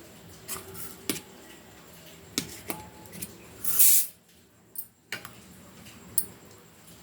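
Kitchen utensils and containers being handled: scattered light clicks and knocks, with a short loud hissing rush a little past halfway, then a brief drop to near-silence.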